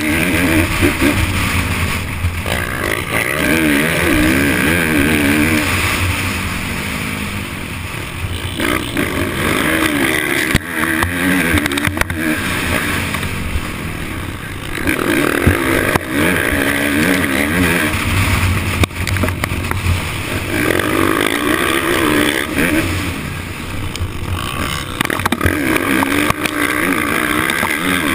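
Kawasaki KX450F motocross bike's single-cylinder four-stroke engine heard on board, revving hard and backing off again and again, its pitch rising and falling with each surge of throttle.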